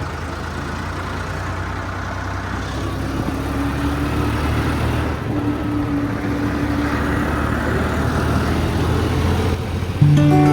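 Farmtrac 50 tractor's diesel engine running steadily while the tractor drives along the road. A brief louder tone cuts in near the end.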